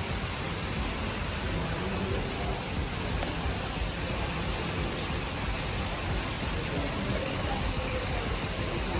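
A steady, even rushing noise with no distinct events, like air or water rushing.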